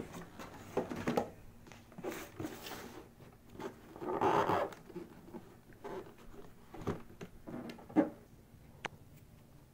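Cardboard packaging being handled: a VR headset's black inner box scraped, tapped and knocked about, with rustling scrapes. The loudest moments are a longer sliding scrape about four seconds in and a sharp knock about eight seconds in, as the lid is worked open.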